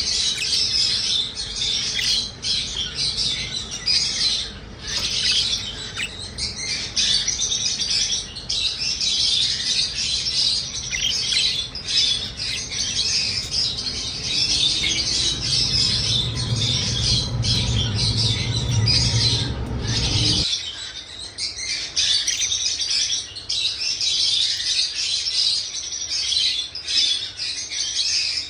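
Many small pet birds chirping and chattering at once in a dense, continuous high twitter. A low rumble underneath cuts off suddenly about twenty seconds in.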